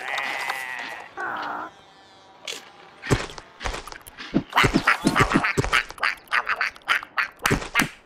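Cartoon parrot's quack-like squawks: one held call, a shorter lower one about a second in, then from about three seconds in a quick, irregular run of short sharp clicks and squawks.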